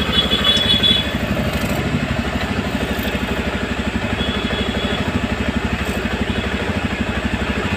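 TVS Ntorq 125's single-cylinder four-stroke engine idling with an even, steady beat just after a full rebuild. It runs smoothly with no knocking or rattling, a sign that the timing chain and tappets are set right; the mechanic calls it a first-class, silent sound.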